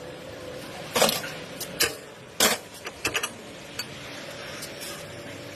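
Rear wheel bearing and brake disc noise on a car: a faint steady hum with several irregular sharp clicks and scrapes in the first three seconds or so.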